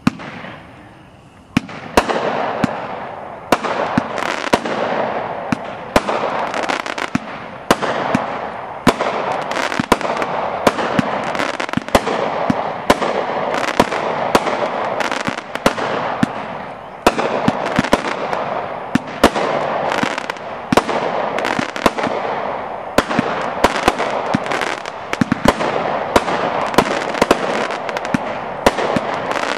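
AFW Red Sky 36-shot 200-gram consumer firework cake firing in rapid succession: sharp shots about once a second, with a steady rush of noise between them that swells about a second and a half in.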